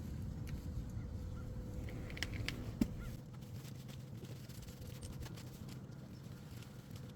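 A few light clicks and a sharp knock from brake caliper parts being handled during cleaning, over a low steady rumble that drops slightly after the knock.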